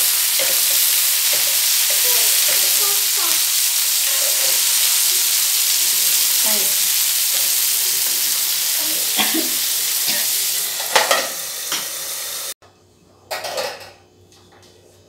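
Masala-coated milkfish slices shallow-frying in hot oil in a pan, a steady dense sizzle, with a metal spatula scraping and turning the pieces. The sizzle cuts off suddenly about two-thirds of the way through, followed by a brief clatter and then quiet.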